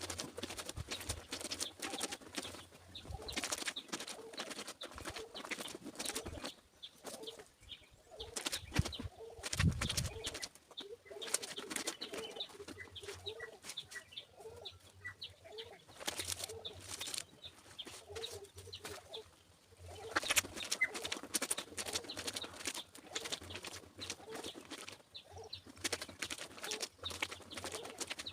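Clothes being washed by hand: irregular splashing and scrubbing of wet fabric in water. Birds call throughout in the background with short repeated notes.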